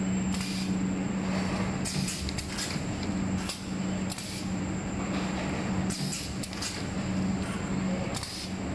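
Rigid box assembling machine running: a steady low hum with a thin high whine, broken by short hisses of compressed air from its pneumatic cylinders several times.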